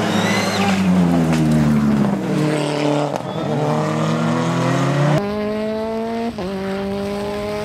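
Rally car engines at high revs: the first drops in pitch as it slows, then climbs again as it accelerates away. About five seconds in, the sound switches abruptly to another rally car accelerating with a steadily rising engine note, briefly dipping at a gear change.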